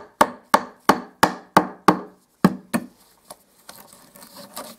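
Hammer tapping a sharpened oak sliver into an old screw hole in the wood: quick, sharp taps about three a second, a short pause about two seconds in, then two more taps, followed by quieter handling noise.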